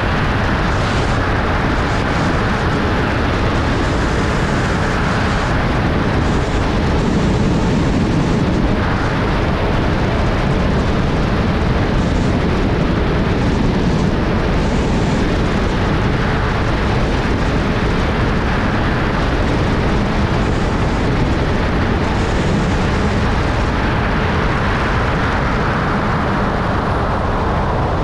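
Loud, steady rush of wind buffeting a GoPro microphone during wingsuit flight.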